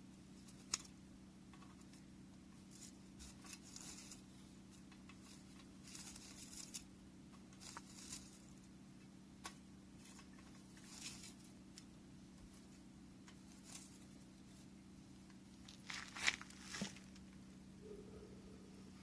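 Wood fire crackling, with sparse irregular pops and snaps, the loudest cluster of snaps about three quarters of the way through, over a faint steady hum.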